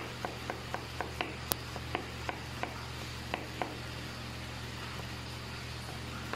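A knife chopping cooked chicken on a cutting board: a dozen or so quick, sharp strokes in the first three and a half seconds, then it stops. A steady low hum runs underneath.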